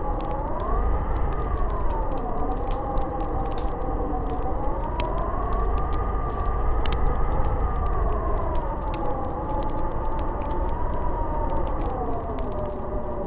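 Snowstorm wind howling, its pitch slowly wavering up and down over a steady low rush, with scattered crackling clicks throughout.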